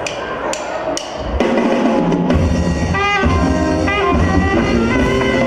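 Live dance band starting a song: two sharp clicks half a second apart, then about a second and a half in the full band comes in together, with a saxophone section playing the melody over electric bass, drum kit and congas.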